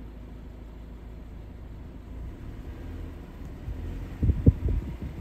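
Low rumble inside a car, growing a little from about two seconds in, with a few loud low thumps about four seconds in.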